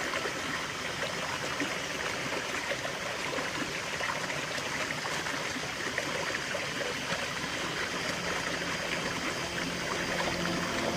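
A stream's running water, flowing and trickling steadily.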